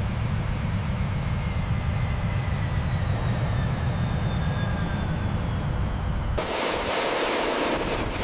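Steady low rumble of jet engines running, with faint high whines slowly falling in pitch. About six seconds in it cuts abruptly to a brighter rushing hiss.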